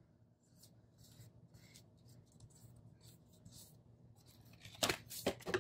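Paper being handled on a planner page: faint scattered rustles and light taps, then a few louder, crisp paper sounds near the end.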